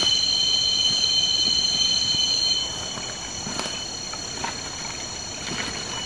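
Cicadas droning in steady high tones. The loudest one stops about two and a half seconds in, leaving a quieter insect drone with scattered light crackles, like footsteps in forest litter.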